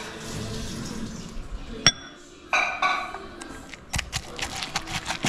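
Pestle striking the inside of a stone mortar while pounding a chilli paste: a single sharp, ringing clink about two seconds in, then a run of quick knocks in the last second or so.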